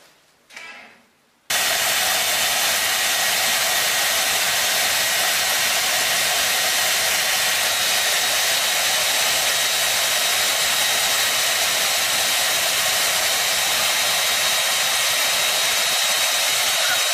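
Handheld hair dryer running: an even rushing blow with a faint high whine, switching in abruptly about a second and a half in and holding steady throughout.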